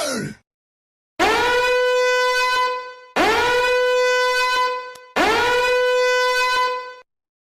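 A horn-like blast sound effect played three times in a row, each time identically. Every blast scoops up in pitch, then holds one steady, buzzy note for about two seconds. At the very start a different sound's tail glides down and cuts off.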